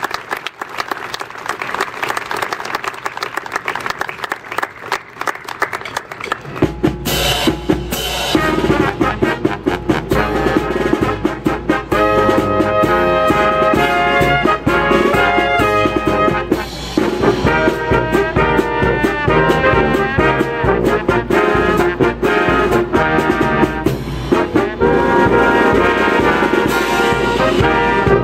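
Crowd applauding for about six seconds, then a brass band with drums starts up, trumpets and trombones playing over a steady drum beat that runs on loudly.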